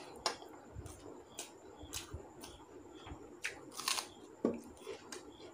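Quiet, scattered wet clicks and smacks of someone eating rice and chicken curry with their fingers: chewing, and the hand working the food into the mouth.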